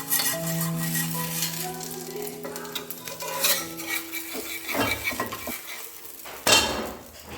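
A utensil scraping and clinking against a pan while batter fries in hot coconut oil, sizzling; the loudest scrape comes near the end. Background music runs under the first half and stops about four seconds in.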